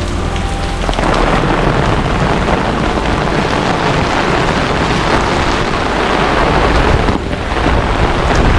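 Heavy monsoon downpour: a dense, steady rush of rain that grows louder about a second in and dips briefly near the end.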